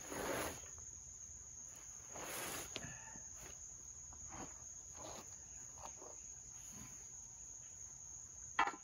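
Steady high-pitched insect chirring in the background, with a couple of soft rustling scrapes, the first at the very start and the second around two seconds in, as a steel flat bar is slid across a fabric ground mat under the tractor.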